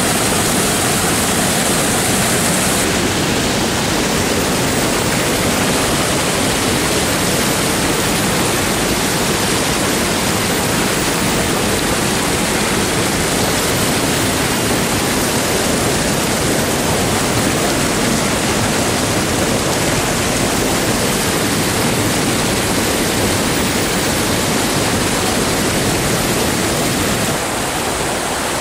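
Fast, clear stream rushing and foaming over its rocky bed and small weirs: a steady, loud rush of water.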